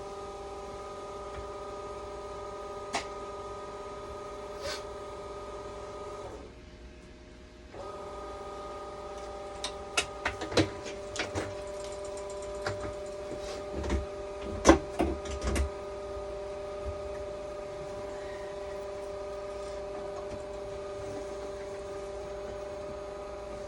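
A steady electrical hum with several even tones that cuts out for about a second and a half around six seconds in, then comes back; midway, a run of sharp clicks and knocks of handling and tool work.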